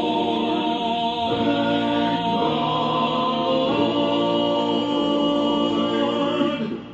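Vocal group singing long held chords with no clear words, moving to a new chord a few times, then cutting off just before the end.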